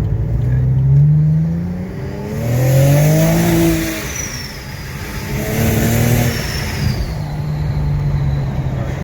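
Car engine revving in several rising surges, each a second or so long, then holding a steady note near the end. A faint high whine falls in pitch twice in the middle.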